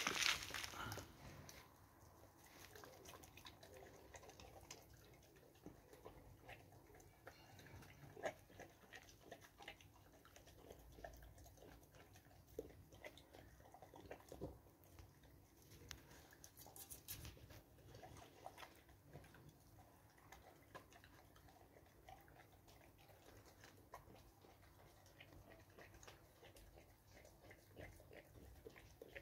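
Dog eating from a metal bowl: faint chewing with scattered small clicks, and a louder burst of noise right at the start.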